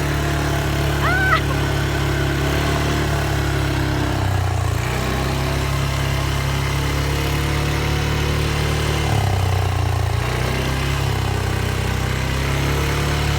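ATV engine running steadily, its low drone shifting a little in pitch a few times as the throttle changes. A short high chirp comes about a second in.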